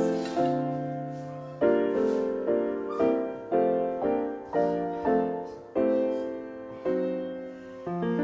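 Background music: a solo piano playing a slow melody, each chord struck and left to fade.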